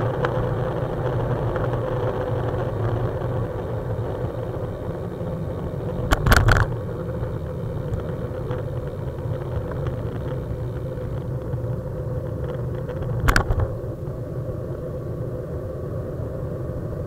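Steady rumble of wind and road vibration on a camera mounted on a moving road bike's handlebars, with two sharp knocks, about six and thirteen seconds in.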